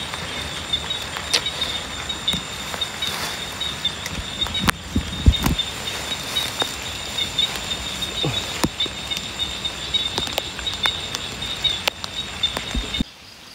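Steady chorus of night insects, a grainy high buzz, with scattered close clicks and rustles from hands working fishing line and hook over a plastic basket. The chorus cuts off suddenly near the end.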